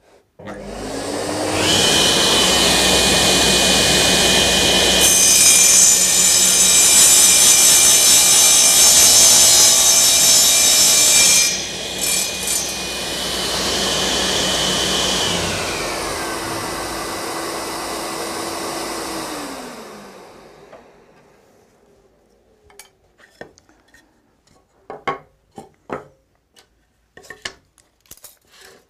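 Power saw started up and set to a 45-degree bevel, spinning up and then cutting a mitre along the edge of a maple board for about six seconds. It then runs free and winds down, its pitch falling. Near the end come a few light knocks as the wood is handled.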